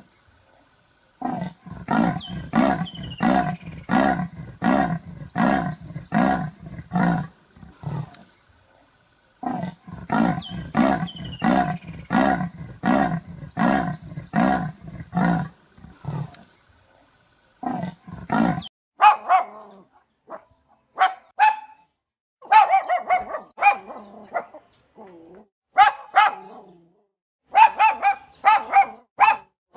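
A big cat's rasping call: a series of about a dozen strokes at roughly two a second, then the same series again after a short pause. From about nineteen seconds in, a dog barking in short, irregular barks.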